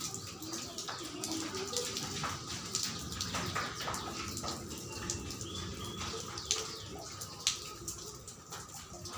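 Rain water splashing and dripping, with many scattered sharp drip and splash clicks over a steady wash of water noise.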